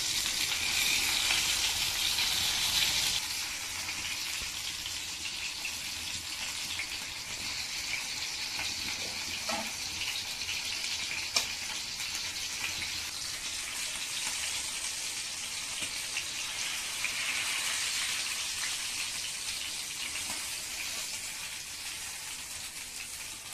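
Pomfret fish slices shallow-frying in hot oil in a cast iron pan, a steady sizzle that is louder for the first three seconds and then settles lower. A single sharp click comes about eleven seconds in.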